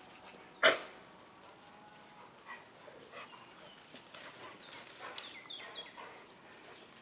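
A single short bark from a Rottweiler under a second in, followed by faint rustling and scattered small sounds.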